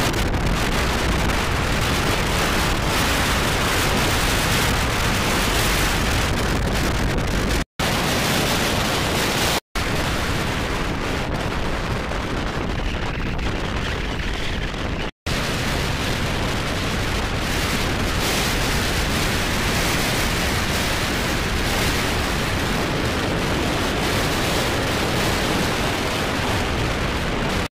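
Strong wind buffeting the microphone, a steady roar of noise with heavy rumble, over choppy open water. Three brief silent gaps break it, about 8, 10 and 15 seconds in.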